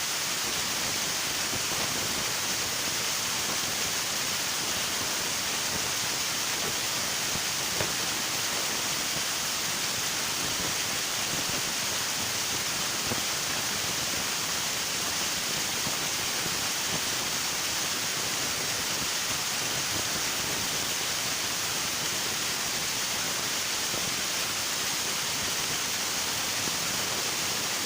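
River water rushing steadily over rocks, an even, continuous hiss of flowing water with no change in level.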